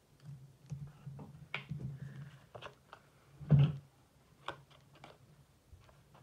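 Paper and scissors being handled on a craft mat: scattered soft taps and rustles, a louder knock about three and a half seconds in as the scissors are picked up, then a few sharp snips of scissors cutting a strip of patterned paper near the end.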